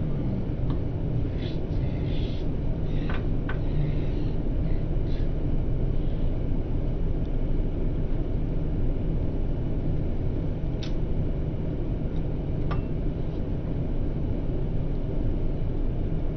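Steady low rumble of an airliner cabin in flight, the drone of engines and airflow, with a few faint clicks.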